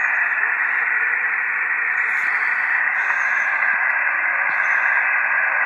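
Ham International Jumbo radio receiver hissing steadily with static through its speaker, no voice coming through on the channel.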